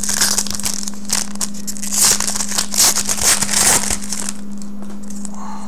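A trading card pack wrapper being torn open and crinkled in the hands: dense crackling rustle that dies down about four and a half seconds in.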